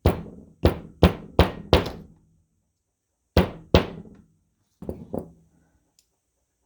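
A screwdriver's ferrule being tapped down onto its handle at a workbench: five quick knocks in about two seconds, two more after a short pause, then a few lighter taps. Each knock rings briefly.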